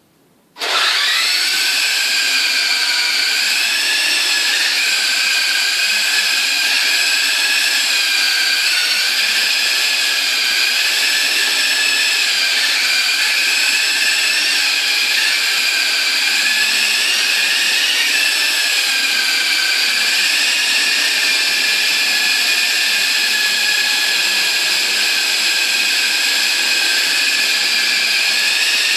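Small electric model helicopter starting up about half a second in, then its motor and rotors running with a steady high-pitched whine made of several tones that waver slightly in pitch as it is flown.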